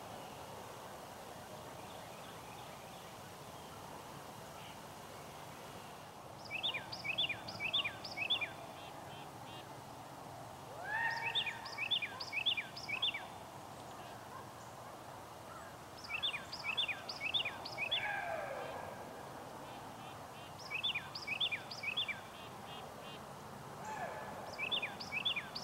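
A songbird singing phrases of four or five quick, falling whistled notes, a phrase about every five seconds, over steady outdoor background noise. A few lower, longer falling calls come in between the phrases.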